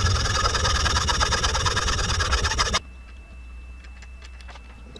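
Hand saw cutting back and forth through a carved jig-head blank held in a vise, widening the slot for the jig hook; the sawing stops abruptly about three seconds in, leaving a faint steady high tone and a few light clicks.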